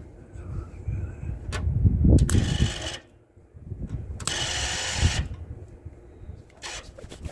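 Welder laying spot welds on a van's steel sill patch panel: two short bursts of crackling arc, each under a second and about two seconds apart, and a briefer one near the end, over a low rumble.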